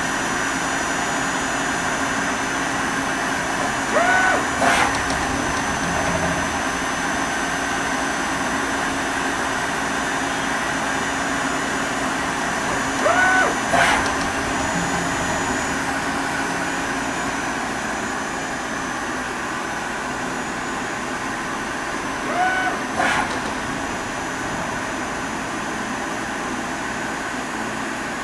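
YCM Supermax 4-axis CNC vertical machining center running its program without cutting: a steady machine hum, broken three times, about nine seconds apart, by a short whine that rises and falls in pitch and ends in a sharp click.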